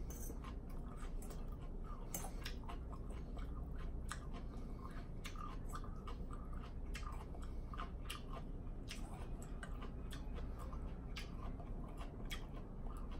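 A person chewing and crunching a mouthful of dressed salad greens and tomato, with many irregular sharp clicks and smacks.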